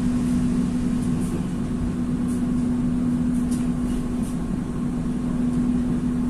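Steady low hum of the KA Kertajaya passenger train, holding one unchanging pitch, with a few faint, sharp clicks scattered through it.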